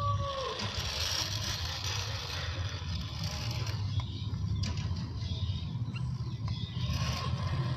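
A 1/10-scale RC rock crawler's small electric motor and gear drivetrain running steadily, with a few sharp clicks about halfway through.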